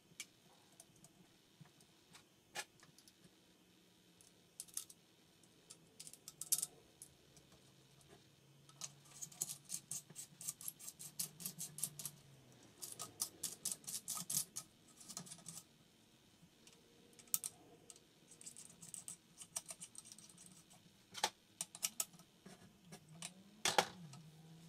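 Small metal gun parts and tools clicking and tapping as a folding stock adapter is fitted, with scattered single clicks and runs of quick clicking in the middle.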